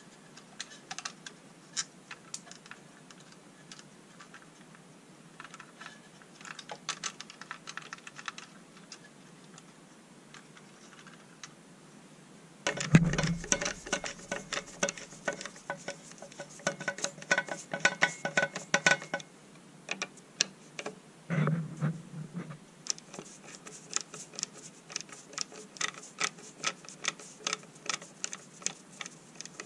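Clicks and small knocks of hand tools and wiring being worked inside the opened metal housing of a Kenwood Chef mixer, with a couple of low bumps. Near the end a steady run of clicks comes as a screwdriver works the screws of the speed-control circuit board.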